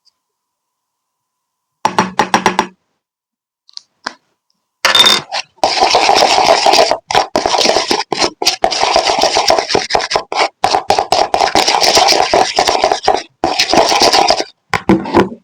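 Glitter slime being squeezed and kneaded by hand, making sticky crackling and popping. It comes as a short burst about two seconds in, then runs almost continuously from about five seconds in, with brief breaks.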